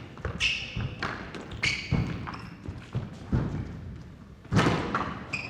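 Squash ball being struck and hitting the court walls during a rally: a few sharp thuds, irregularly about a second apart, with short high squeaks of shoes on the court floor.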